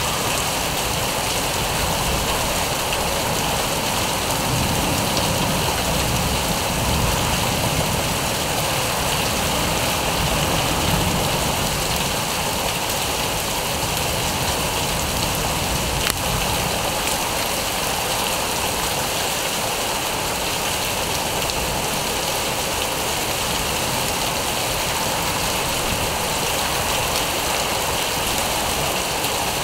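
Steady heavy rain falling during a thunderstorm, an even hiss throughout, with a low rumble swelling and fading in the first half and a single brief click about sixteen seconds in.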